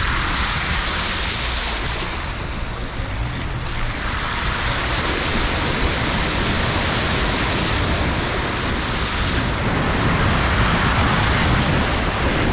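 Water spraying and rushing off the wheels of a car driving through a flooded causeway: a loud, steady hiss over a low rumble of engine and wind.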